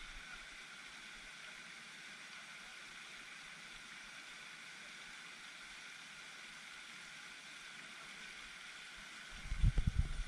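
Steady hiss of pond fountain spray falling on the water. About nine seconds in, a run of loud low thumps and knocks starts as the rod is swept into a hooked bass.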